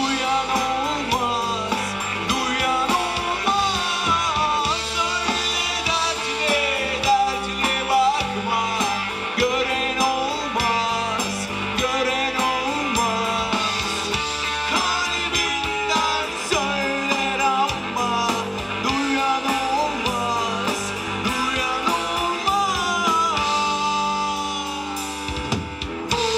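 Live rock band playing: electric guitars, bass guitar and drum kit, with a man singing lead into the microphone.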